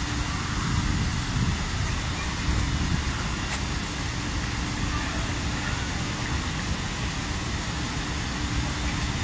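Low, steady outdoor rumble with a faint steady hum running through it.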